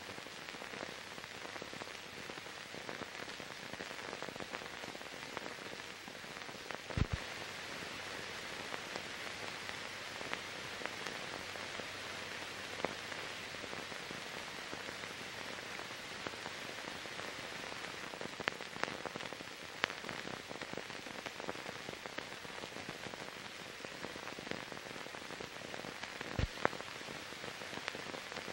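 Steady hiss with scattered crackles and a few sharp clicks, one about seven seconds in and another near the end: the noise of the empty soundtrack of silent archival film.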